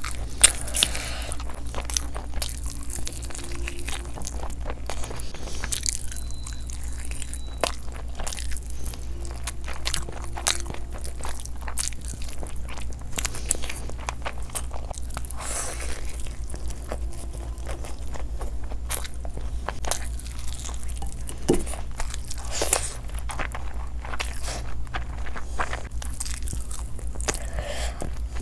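Close-miked eating of curry-coated fried chicken leg pieces by hand: chewing and biting with many short clicks and crunches, over a steady low hum.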